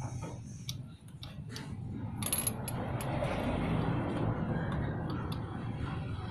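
Light metallic clicks of a spark plug wrench as a new spark plug is fitted into a motorcycle's cylinder head. About two seconds in, the steady rumble of a passing vehicle builds up and covers the clicks.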